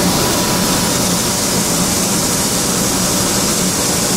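Malt-cleaning machinery (bucket elevator, derooter and aspirator) running steadily: a loud, even mechanical noise with a low hum underneath.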